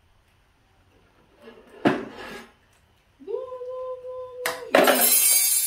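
A metal kitchen spatula clattering and scraping: a sharp clank about two seconds in, then a loud harsh rasp near the end.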